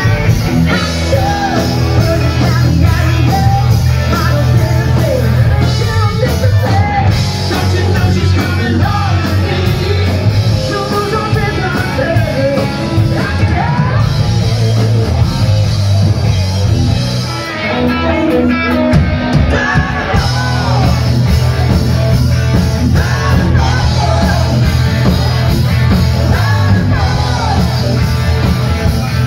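Live rock band playing loudly: electric guitars and drums with a lead singer, heard from among the audience.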